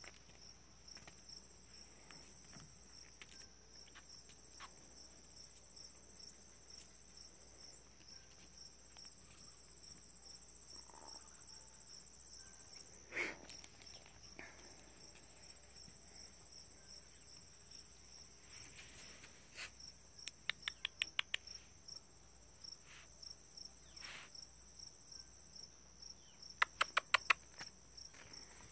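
Insects chirping steadily in a high, pulsing chorus. A single knock about halfway through, and two short runs of quick, evenly spaced clicks in the second half, which stand out as the loudest sounds.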